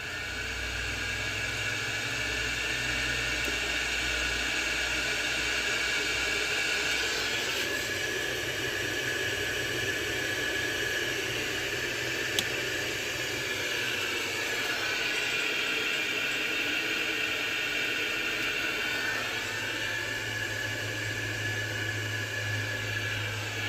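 Daikin NDJ gas combi boiler running: a steady whir with a few high tones that dip and shift slightly a few times, and a single sharp click about halfway.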